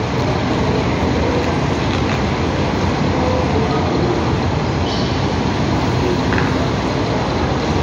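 Scania K440IB double-decker coach's diesel engine running as the bus creeps forward at low speed, a steady even noise with no changes.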